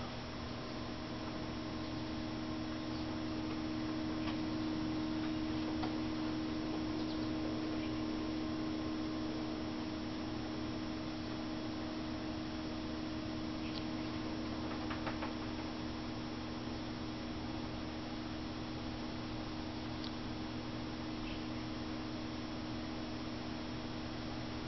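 Rain lamp running: its small pump hums steadily, with a few faint ticks scattered through.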